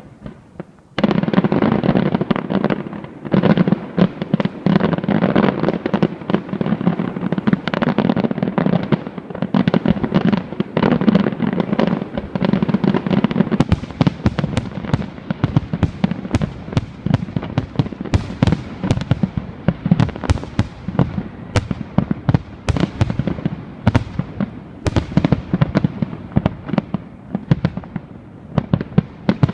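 A fireworks display: a dense, unbroken barrage of bangs and crackling starts suddenly about a second in, and from about halfway on many separate sharp cracks stand out in quick succession.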